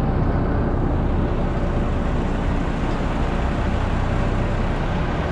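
Bizon Rekord Z058 combine harvester's diesel engine running steadily at a low, even speed as the machine creeps backwards out of a shed.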